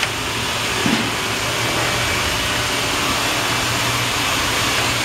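Steady whirring machine noise with a low hum underneath, the running background of a heat-press workshop.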